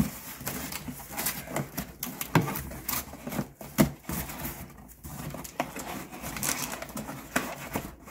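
Cardboard packaging being handled and pulled out of a box: scraping and rubbing of cardboard on cardboard, with rustling and irregular small knocks throughout.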